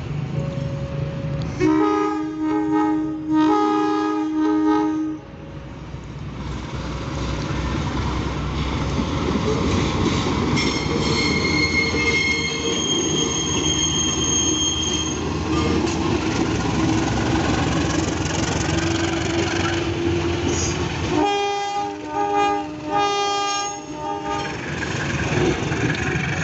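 CC201 diesel-electric locomotive sounds two horn blasts about two seconds in, then runs past hauling a string of KRL electric multiple-unit cars, with a high wheel squeal from the rails about ten seconds in. Two more horn blasts come about twenty-one seconds in.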